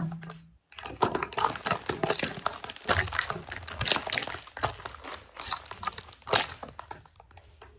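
Plastic packaging crinkling and crackling as it is handled, in a dense run of small crackles.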